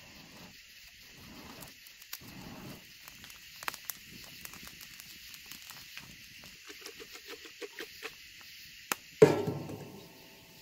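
Wood fire crackling with small pops under a steel grill grate, against a steady chirping of night insects. About nine seconds in, a metal cup is set down on the grate with a sharp clank that rings briefly.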